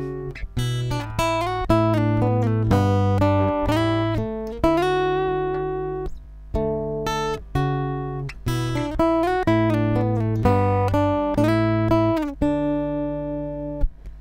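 Guitar recording played back with its compressor switched off: a run of plucked notes and chords, each striking and dying away, with the loudness jumping up and down from note to note. This is the rough, uncompressed sound of the guitar line.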